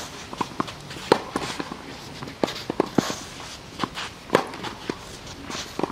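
Tennis rally on a clay court: a string of sharp knocks, several a second, from rackets striking the ball and the ball bouncing, mixed with players' shoes scuffing on the clay.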